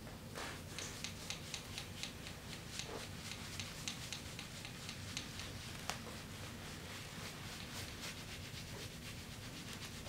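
Shaving brush lathering a man's scalp and the back of his neck: brisk, crisp bristle strokes over stubbly skin, about three a second.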